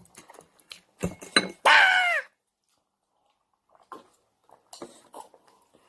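Eating utensils clicking and clinking against dishes, with a short high-pitched squeal that falls in pitch about two seconds in, the loudest sound here. A few faint clicks follow later.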